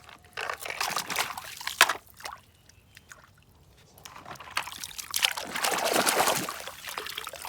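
Water pouring and splashing over a muddy toy crane truck as it is washed by hand. The water comes in two spells with a short lull between, and a few sharp knocks in the first two seconds.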